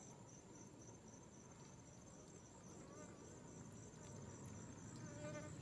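Faint insect chirping: a high trill pulsing several times a second and held steady, over a low background rumble.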